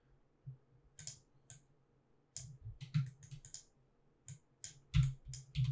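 Computer mouse and keyboard clicks: a dozen or so short, irregular clicks and key taps, bunched around three seconds in and again near the end, a few with a dull thump.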